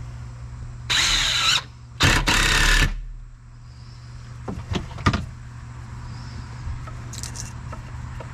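A power tool runs in two short bursts under load, its whine wavering, followed a couple of seconds later by a few sharp knocks.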